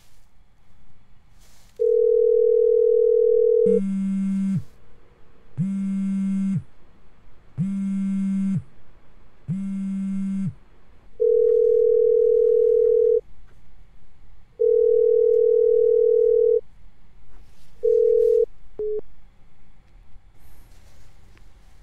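Phone call tones: a steady, even beep about two seconds long, repeated several times with short gaps, the ringback heard while a call goes unanswered. Between the first two beeps, a mobile phone set to vibrate buzzes four times for the incoming call, each buzz about a second long.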